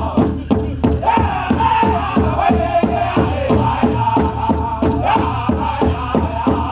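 Powwow drum group playing a chicken dance song: men singing in high, chanting voices over a big drum struck in a fast, steady beat.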